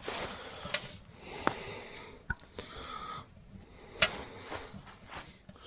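A small wet-wood fire in a tent stove, burning poorly: sharp pops and crackles come at intervals, with several breathy puffs of air in between.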